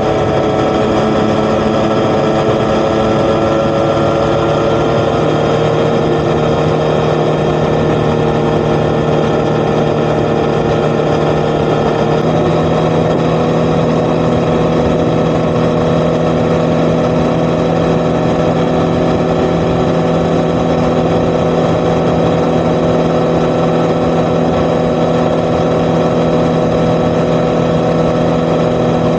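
Yamaha XSR900's CP3 inline-three engine running at a steady cruise through an Akrapovič titanium exhaust, its note holding level, with a small shift in pitch about twelve seconds in.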